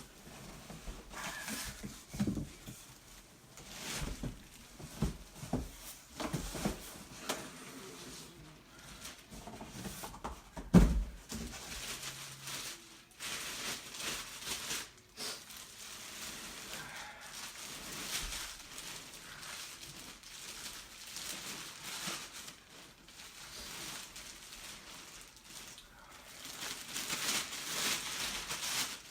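Speaker packaging being handled and opened: rustling and tearing of packing material with scattered knocks and one loud thud about eleven seconds in.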